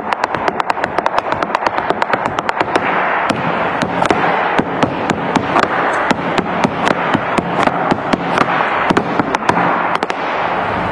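Flamenco zapateado: heeled flamenco shoes striking a wooden plank floor in rapid heel-and-toe strikes, very fast at first, then sparser and uneven from about three seconds in. A steady background noise runs underneath.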